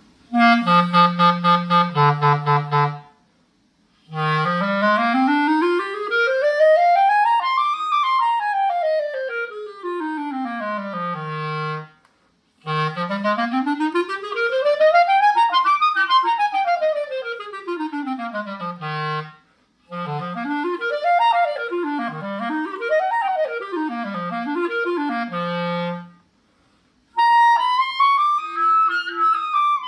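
Clarinet played with a Vandoren V12 cane reed, strength 3. It opens with a few short tongued low notes, then runs two fast scales up about three octaves and back down. Rapid up-and-down arpeggios follow, and a higher legato phrase starts near the end.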